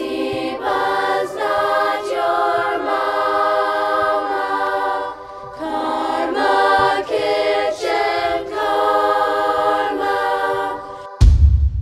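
Choir singing slow, held chords without instruments, in phrases that change pitch. Near the end a sudden deep boom cuts in and dies away.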